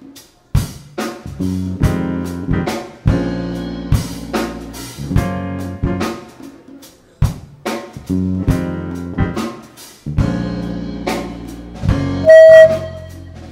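Live band playing an instrumental passage. A drum kit with bass drum and rimshots accents chords from bass and other instruments in stop-start hits. Near the end a loud, held high note sounds for under a second.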